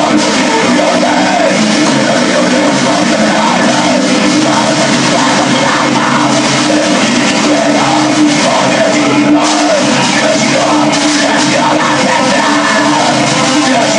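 Black metal demo recording playing: a dense, loud, unbroken wall of distorted band sound with harsh yelled vocals.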